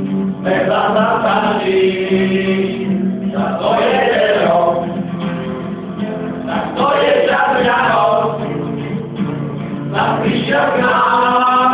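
A small group of men singing a Christmas carol together in unison, accompanied by a strummed acoustic guitar.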